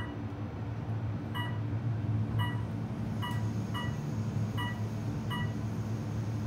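Otis Elevonic 401 elevator car, modernized, travelling down with a steady low hum, sounding a short floor-passing beep each time it passes a floor: seven beeps about a second apart.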